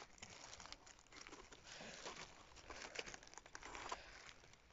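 Faint, irregular scraping and crackling of a small knife blade paring the soil-caked base of a cèpe (bolete) stem, with bits of earth and shavings falling away.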